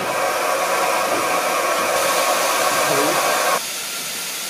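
Steam hissing steadily from a steam locomotive, cutting off suddenly about three and a half seconds in and leaving a fainter hiss.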